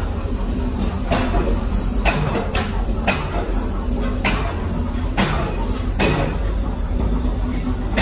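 Workshop machinery running with a steady low hum and irregular sharp knocks, roughly one a second.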